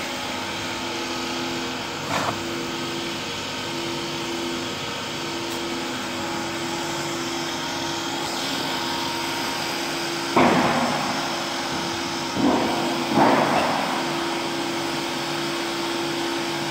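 Animal feed pellet extruder, driven by an electric motor, running steadily with a constant hum and a held low tone. A few short, louder bursts of rushing noise break in near the middle.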